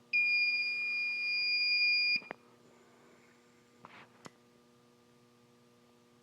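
Fire alarm control panel's piezo buzzer sounding one steady high-pitched tone for about two seconds as the panel is reset. A few short clicks follow, then only a faint electrical hum.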